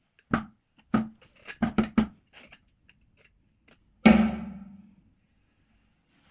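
A hand tool knocking and scraping at the wall to cut back room for plaster around a socket box, in a run of short sharp strokes over the first two seconds. About four seconds in, one louder clank with a ringing tail.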